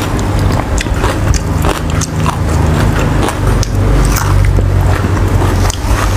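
Close-miked chewing and eating sounds, with scattered wet clicks and crackles over a steady low rumble.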